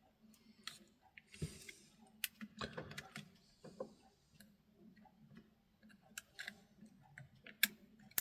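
Faint, irregular small clicks and taps from handling the opened radio's circuit boards and ribbon-cable connectors.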